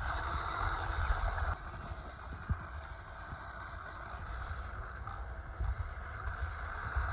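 Losi Mini T 2.0 electric RC truck whirring as its stock BK Bar tires spin in short grass. The truck is stuck and spinning in place. The whirring is louder for about the first second and a half, then quieter, over a steady low rumble.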